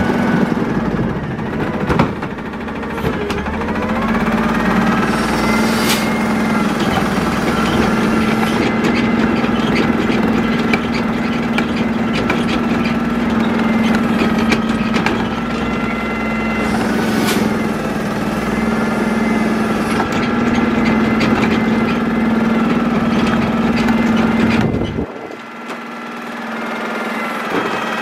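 Labrie Minimax side-loader garbage truck running, its engine drone joined by a hydraulic whine that rises and falls in pitch as the cart tipper lifts and dumps a green-waste cart, with a few sharp knocks of the cart against the lifter. Near the end the steady drone drops away suddenly.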